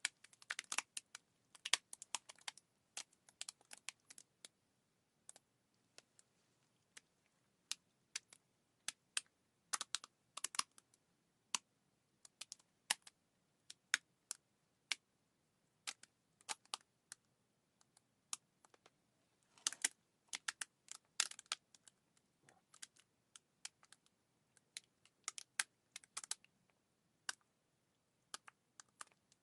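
Irregular light clicks and taps, some single and some in quick flurries.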